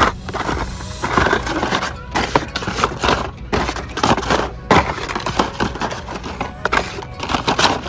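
Plastic blister packs of Hot Wheels die-cast cars clacking and crinkling against each other and the cardboard display as a hand flips through them: a run of quick, irregular clicks and rustles.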